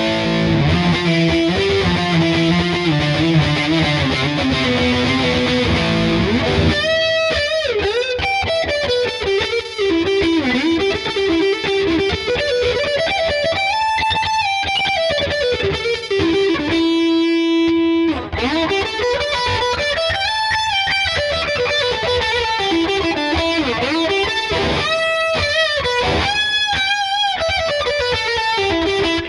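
Ibanez SZ520QM electric guitar played with a distorted tone. It opens with dense riffing for the first several seconds, then switches to fast single-note lead runs that climb and fall, with one note held for about a second just past the middle.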